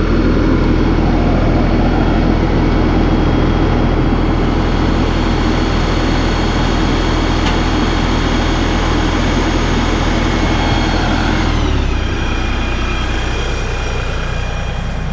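Diesel engine of a 42 hp LS compact tractor running steadily at raised revs, with a high whine over it. About twelve seconds in the engine speed drops and settles lower.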